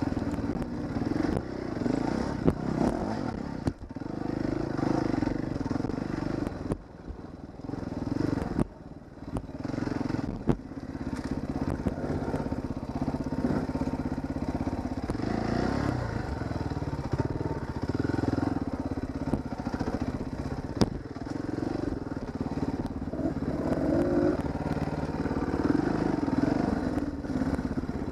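Dirt bike engine running at low speed on a rocky trail, the throttle opening and closing with two brief let-offs about a quarter of the way in. Occasional sharp knocks and clatter come from the bike hitting rocks.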